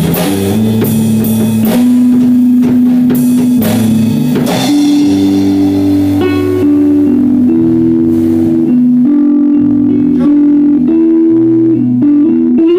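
Live rock band playing drum kit, electric bass and guitar. The drums drop out about halfway through, leaving the bass and guitar playing on.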